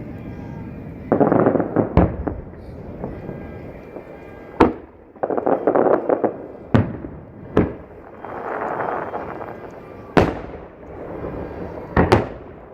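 Aerial fireworks shells bursting overhead: a string of sharp booms, a second or two apart, with a double boom near the end and stretches of noisy rumble between them.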